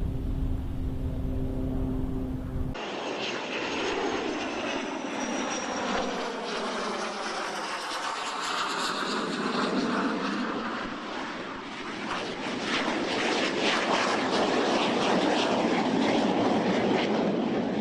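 A low rumble with a steady hum cuts off abruptly about three seconds in, giving way to the rushing noise of a jet aircraft passing, its tone sweeping as it goes by and growing louder in the second half.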